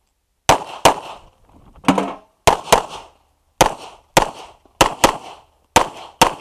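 Rapid gunfire on an IPSC practical shooting stage: about eleven shots, mostly fired in quick pairs (double taps) with short gaps between groups as the shooter moves from target to target. Each shot rings out briefly afterwards.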